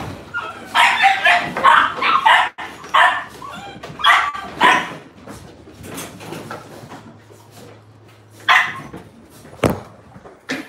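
Bulldogs barking in a quick run of loud barks over the first few seconds, with another bark later on. A sharp knock comes near the end.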